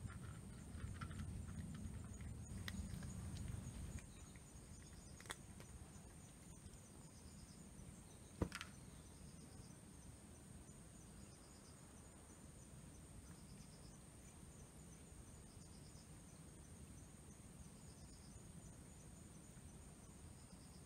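A cat crunching dry food from a bowl for the first few seconds, then one sharp click about eight seconds in. After that the cat falls quiet and faint insect chirps repeat about every second and a half.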